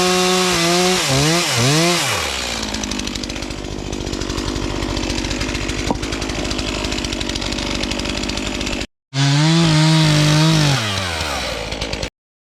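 Stihl MS 251 two-stroke chainsaw at high revs, the pitch dipping and recovering twice, then dropping to a steady idle about two seconds in. After a brief gap near nine seconds it revs up again, falls back, and cuts off suddenly near the end.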